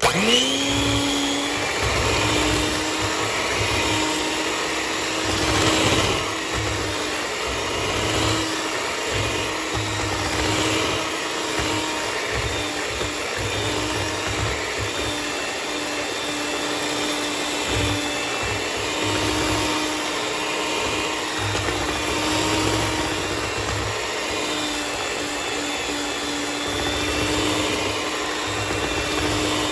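Electric hand mixer switched on, its motor spinning up to speed in about a second and then running at a steady pitch as the twin beaters whisk cake batter in a bowl.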